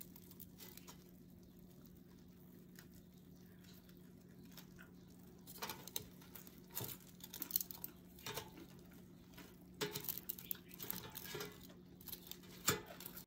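Crisp skin of an air-fried pork knuckle crackling and crunching as it is pulled apart with metal tongs, in faint scattered crackles that grow more frequent after about five seconds. A faint steady low hum runs underneath.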